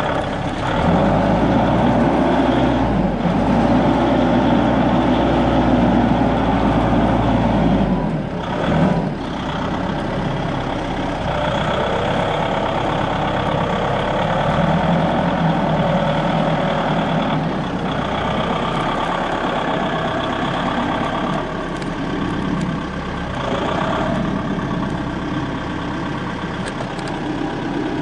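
An engine running steadily, its note and load changing about eight or nine seconds in.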